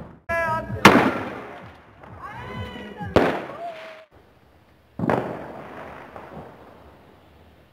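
Fireworks and firecrackers going off: three sharp bangs, about a second, three seconds and five seconds in, each one dying away.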